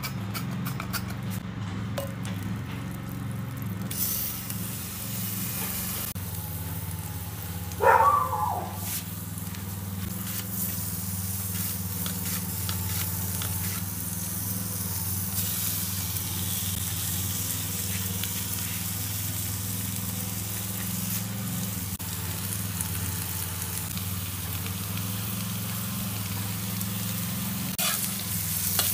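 Butter, steak and sliced onions sizzling steadily in a hot steel pan. About eight seconds in, a short loud squeak cuts through the sizzle.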